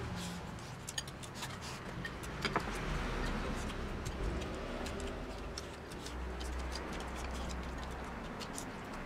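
Chopsticks clicking against a rice bowl during eating, many small irregular taps with a sharper one a couple of seconds in, over a steady low rumble.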